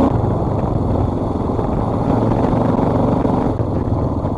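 Dual-sport motorcycle engine running under way, its note shifting with the throttle: it steps up about two seconds in and eases off a little after three and a half seconds.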